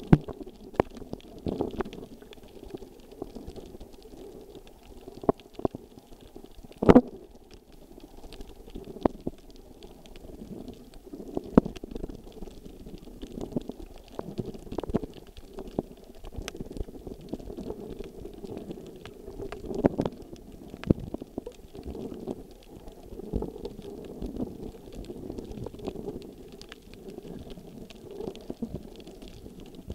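Muffled underwater sound picked up by a camera in a waterproof housing: a low, churning rumble of moving water with scattered sharp clicks and knocks, the loudest about a quarter of the way through.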